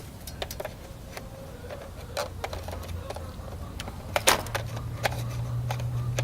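Light plastic clicks and taps as parts of a toy gun are handled and fitted on. A steady low hum starts about four and a half seconds in.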